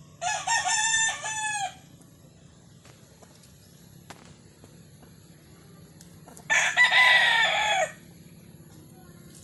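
Gamefowl rooster crowing twice, each crow about a second and a half long, the first right at the start and the second about six and a half seconds in.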